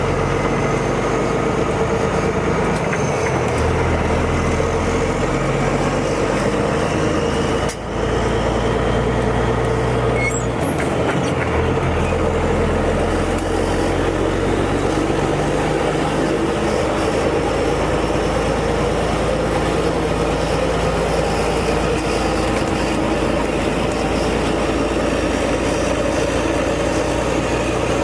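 Straight-piped Caterpillar C15 inline-six diesel in a semi truck, running loud under way with no muffler. There is a brief dip in the sound about eight seconds in.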